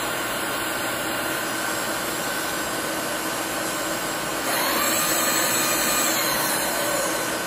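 Steady hum of a machine shop, with an electric motor on a knee milling machine spinning up about four and a half seconds in with a rising whine, running for about two seconds, then winding down near the end.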